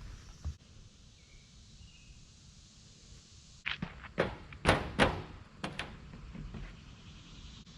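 A quick run of knocks and thuds in the second half, the two loudest about a second apart, over a faint steady background.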